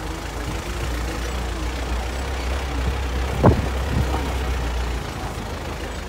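4x4 safari jeep driving over a sandy off-road track, heard from inside the cab: a steady low engine drone with one sharp knock about halfway through. The drone drops away near the end.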